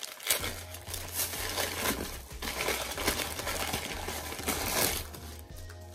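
Thin white plastic bag crinkling and rustling in irregular crackles as it is handled and opened to take out a plate.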